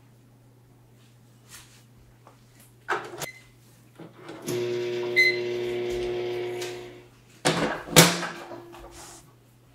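Microwave oven in use: a click and a short beep, then the oven running with a steady hum for a couple of seconds, with another beep over it, followed by loud clicks and knocks near the end as the door is opened.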